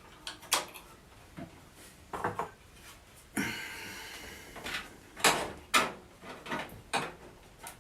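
Sharp metal clicks and knocks from handling the sheet-steel parts of a computer case, the expansion-slot covers being bent out, with a short scraping rattle about three and a half seconds in and a few louder clicks near the end.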